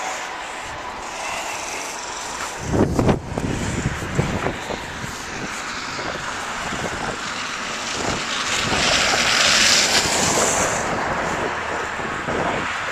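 Strong wind buffeting the microphone in gusts, heaviest about three seconds in. A vehicle passes on the slushy road, its tyre hiss swelling and fading around nine to ten seconds in.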